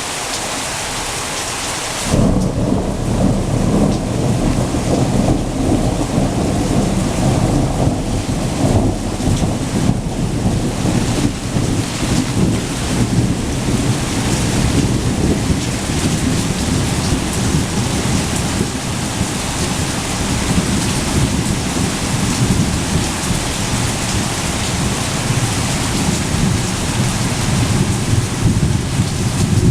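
Steady hiss of heavy rain, then about two seconds in a loud low rumble of thunder breaks in and rolls on, rising and falling, over the rain.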